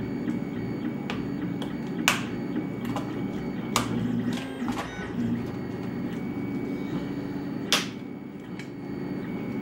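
Small plastic compartment boxes of capacitors being handled and stacked on a desk, giving sharp plastic clicks, the loudest about two, four and eight seconds in, over a steady low hum.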